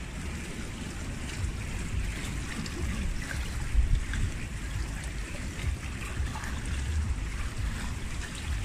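Outdoor swimming pool ambience: an uneven low rumble of wind on the microphone over light lapping and splashing of pool water.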